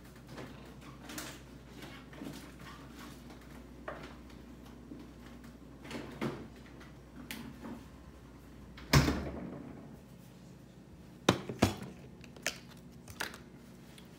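Bottles and a snack packet being set down on a glass-topped wicker table: scattered knocks and clunks, the loudest about nine seconds in with a short ring, two more a couple of seconds later.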